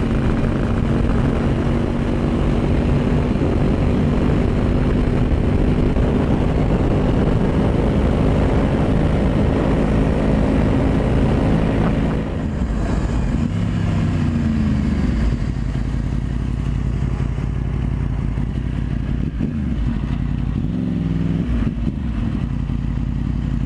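Motorcycle engine running at steady highway speed, with wind rushing over the microphone. About halfway through, the level drops and the engine note falls, then rises and falls again as the bike slows down.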